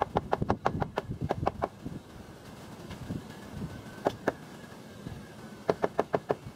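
Hammer driving nails into wooden wall framing: a fast run of strikes in the first second and a half, two more about four seconds in, and another quick run of about five near the end.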